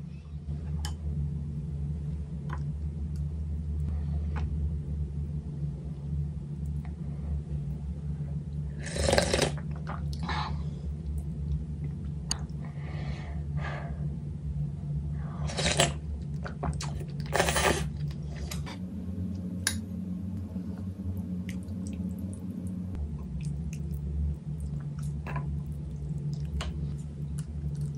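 Close-miked eating of beef bone soup with noodles: chewing with several loud, short mouth noises. Faint clicks of spoon and chopsticks against the bowl come through, over a steady low hum.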